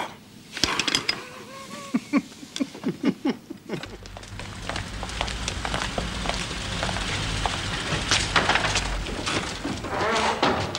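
An army lorry's engine running with a steady low rumble, starting about four seconds in, while men clamber aboard its open wooden-sided bed with clattering knocks, thumps and boot steps. Before it come a few scattered knocks and brief wordless voice sounds.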